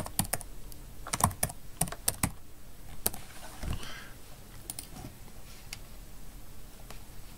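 Typing on a computer keyboard: a quick run of keystrokes over the first couple of seconds, then a few separate clicks spaced out after it.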